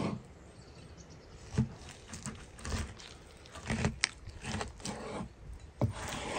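Handling noise: a few irregular light knocks and short rustles, spaced a second or so apart.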